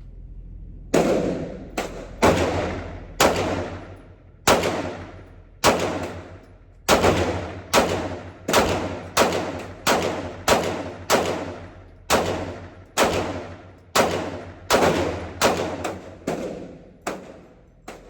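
Pistol gunfire, a Glock 19 9mm among it: about two dozen sharp shots at uneven spacing, roughly half a second to a second apart, each followed by a long echoing decay.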